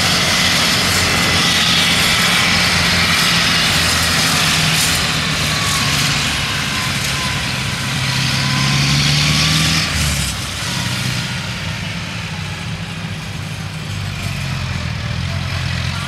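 Yanmar AW82V combine harvester's diesel engine and threshing machinery running hard while cutting rice: a steady engine hum under a high whirring rush. It grows a little fainter about ten seconds in.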